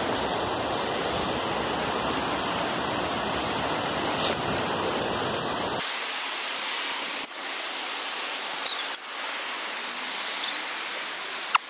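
Mountain river rushing over rocks, a steady hiss of flowing water. About six seconds in, the low rumble drops away abruptly, leaving a thinner, higher hiss.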